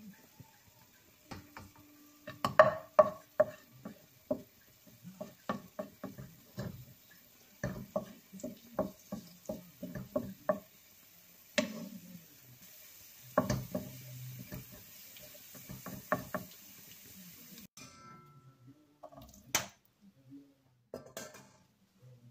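A wooden spatula knocking and scraping against a frying pan while stirring, a run of irregular taps, loudest about two and a half seconds in.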